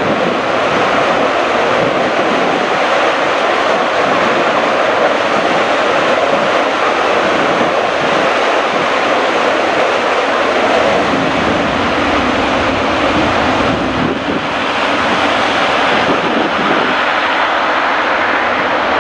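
Panavia Tornado GR4's twin Rolls-Royce RB199 turbofans running at high power, with a loud, steady jet noise and a brief dip in loudness about two-thirds of the way through.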